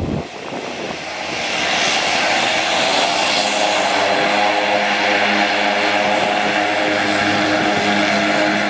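BAe Jetstream twin-turboprop airliner taxiing, its engines running with a steady propeller drone and a high turbine whine. The sound grows louder over the first two seconds, then holds steady.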